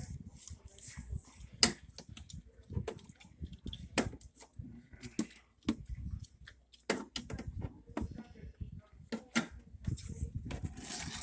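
Irregular clicks and knocks of hands handling refrigerator parts, the sharpest about one and a half seconds in, over a low uneven rumble.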